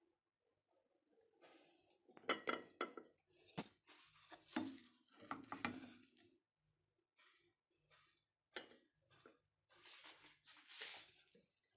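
Kitchen utensils clinking and scraping against dishes in short, irregular bursts, faint.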